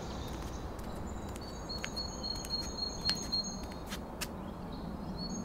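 Outdoor park ambience: a steady low hum and hiss, with a small bird's high chirps repeated evenly several times a second starting about a second and a half in, and a few faint clicks.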